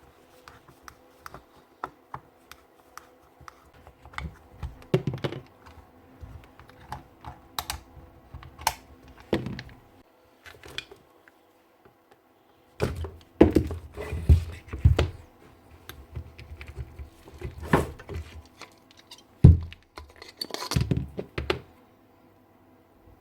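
Irregular clicks, taps and knocks of a mixing drill being taken apart by hand: tools and hard plastic and metal housing parts handled and set down. The knocks come thicker and louder in the second half.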